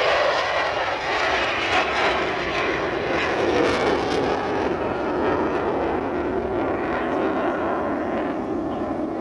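Jet aircraft flying past: a loud steady roar whose pitch slowly falls across the pass.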